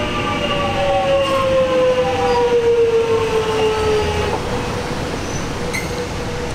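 Metro Trains Melbourne X'trapolis 100 electric train running along the platform. Its traction motor whine, several tones together, falls steadily in pitch as the train slows, then drops away about four seconds in. Wheel rumble and a steady lower hum carry on.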